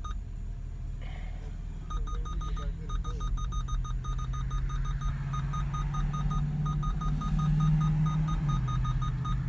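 Bass-heavy electronic music played loud through a truck's car audio system with a Sundown Zv4 12-inch subwoofer: long deep bass notes that step up in pitch and swell loudest near the end, under a fast repeating high beep that comes in about two seconds in.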